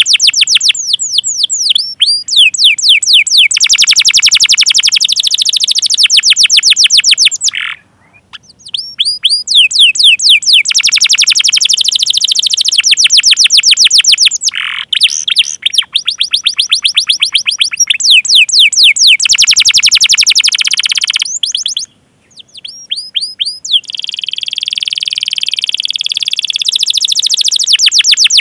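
Domestic canary singing a long song of fast repeated chirps and trills, high-pitched, broken by two short pauses. Near the end it goes into a more even, sustained roll.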